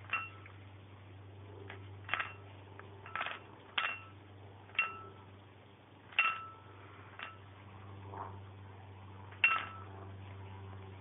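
Light clinks of a plate being knocked or nudged by a dog going after a biscuit: about eight irregular taps, each with a short ring, the loudest near the end, over a steady low hum.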